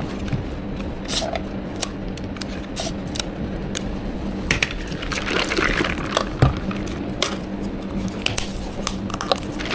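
Drink-making work at a bubble tea counter: scattered light clicks and knocks of cups, lids and utensils being handled, with a stretch of rustling about halfway through, over a steady hum from the shop's equipment.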